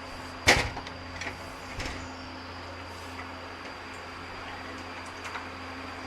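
A sharp clack about half a second in, followed by a few lighter knocks, over a steady electrical hum.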